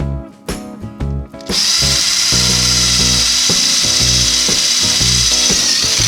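A power tool starts about one and a half seconds in and runs steadily at one speed, with a strong high whine. Background music with a beat plays throughout.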